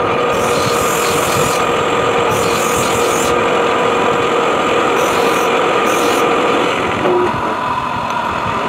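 Metal lathe running steadily with a gear whine as it turns a steel shaft, with four short scraping hisses in the first six seconds. The pitch of the running changes slightly about seven seconds in.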